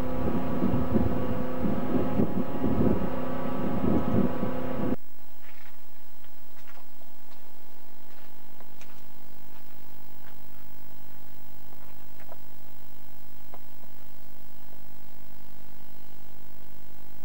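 Loud, rough rumbling noise with a low steady hum that cuts off suddenly about five seconds in. After that there is near silence with only a faint steady electrical hum and a few tiny ticks.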